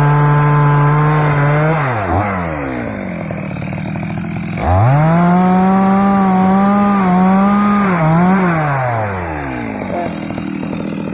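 Stihl MS 250 two-stroke chainsaw run at full throttle, dropping to idle about two seconds in. It revs up again near the middle, holds high for a few seconds, then falls back to idle near the end.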